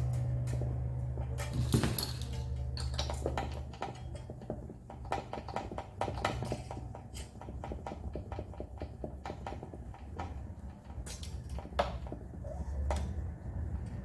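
Low strings of a Taylor 214CE acoustic guitar ringing on after a strum and fading over the first few seconds, followed by scattered small clicks and knocks of the guitar and tools being handled.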